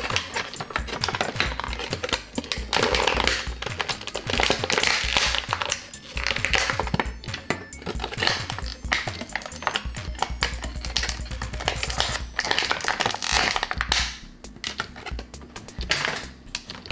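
Thin clear plastic packaging crinkling and crackling as it is pulled open by hand, in rapid irregular bursts, over background music.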